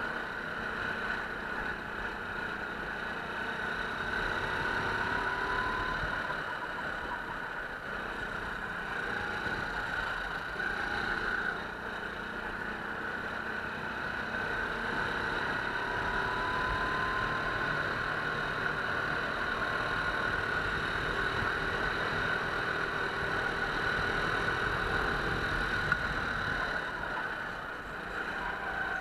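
Go-kart engine running at speed, heard from a camera mounted on the kart, its pitch slowly rising and falling as the driver accelerates and lifts through the corners. A brief sharp tap near the end.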